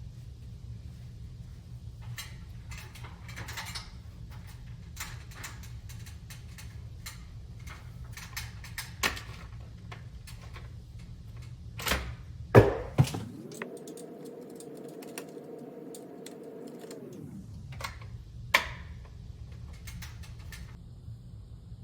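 Plastic clicking, snapping and tapping, with a few sharp knocks, as a smoke alarm and its battery compartment are handled during a battery change. Around the middle, a steady pitched hum lasts about four seconds; it rises at the start and falls away at the end.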